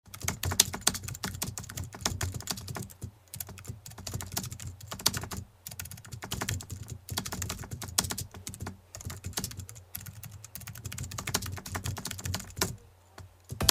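Keyboard typing sound effect: rapid, irregular key clicks in runs with short pauses, stopping near the end.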